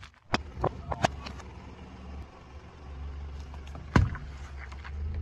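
A car tyre crushing cardboard drink cartons on asphalt: a few sharp cracks and pops in the first second and a loud crack about four seconds in, over the car's low steady engine hum.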